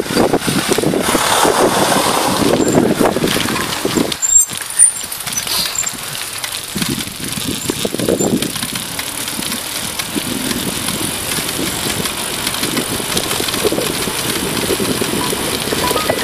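Wind buffeting the microphone of a handlebar-mounted camera on a moving bicycle, with a fluctuating rushing noise from the ride and road. A few short high squeaks come about four to five seconds in.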